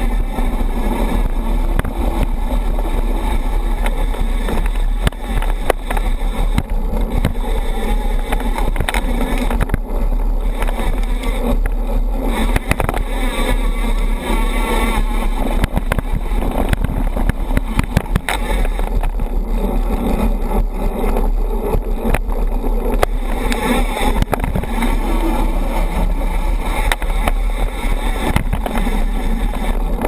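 Mountain bike being ridden with a GoPro mounted low on it: steady wind rumble on the camera's microphone over the noise of knobby tyres rolling on gravel and then dirt singletrack, with frequent clicks and knocks from the bike over bumps.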